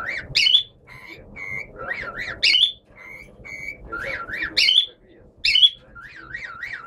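Pet parrot imitating a car alarm. It repeats a cycle about every two seconds: a warbling up-and-down whistle like a siren, a sharp high squawk-chirp, then short flat whistled notes.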